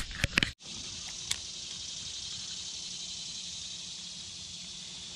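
A few sharp clicks and knocks in the first half second stop abruptly. A steady high hiss of outdoor background sound follows.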